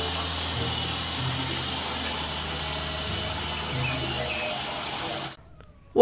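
Large dump truck's diesel engine running steadily while the raised body tips out a load of coal, with a constant rushing noise over the engine's low hum that shifts slightly in pitch a few times. It cuts off suddenly about five seconds in.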